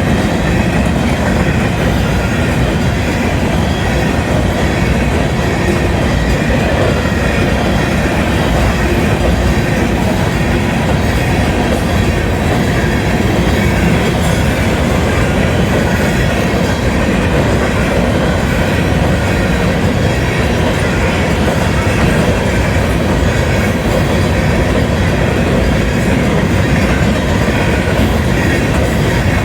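Union Pacific freight train's hopper cars rolling steadily past, a continuous loud rumble of wheels on rail with clickety-clack over the joints.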